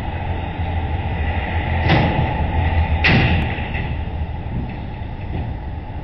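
Two sharp clanks about a second apart, around two and three seconds in, as the steel-framed tilt-bed utility trailer's deck tips and comes down on the concrete floor, over a steady low rumble.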